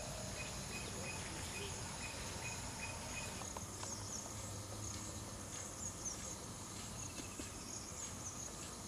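Insects chirring steadily in a high, even drone. An extra chirp repeats about three times a second and stops about three and a half seconds in.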